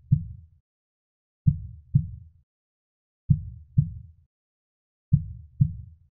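Heartbeat sound effect: deep double thumps in a slow lub-dub rhythm, a pair about every two seconds.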